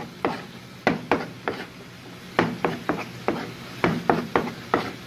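Kitchen knife tapping the cutting board as raw chicken breast is sliced into strips: an uneven run of sharp knocks, about two or three a second, with a brief lull about two seconds in.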